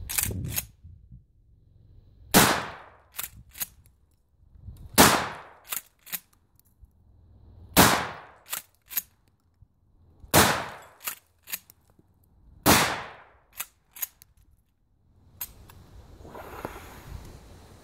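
Mossberg 500 pump-action shotgun firing double-aught buckshot: six loud shots about two and a half seconds apart. Each shot is followed by two quick clacks as the pump is racked to chamber the next shell.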